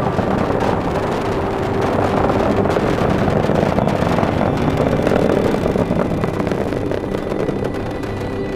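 Steady roar of a Falcon 9 rocket's nine first-stage Merlin engines during ascent, easing slightly near the end.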